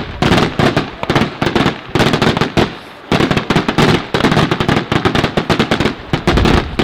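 Daytime fireworks going off: rapid volleys of firecracker bangs, many a second, in dense clusters, with a short lull a little before halfway through.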